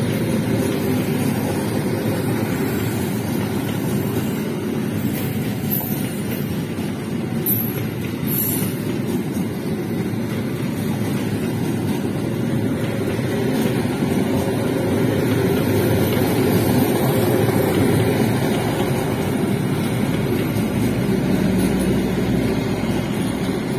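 Indonesian KAI passenger train's coaches rolling past on the rails, a steady rumble of wheels on track. Near the end a steadier low hum joins in as the generator (power) car goes by.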